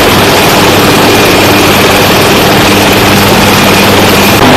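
Bell UH-1Y Venom helicopter running on the ground with its rotor turning: a loud, steady rush of turbine and rotor noise with a high whine over it. The whine drops out shortly before the end.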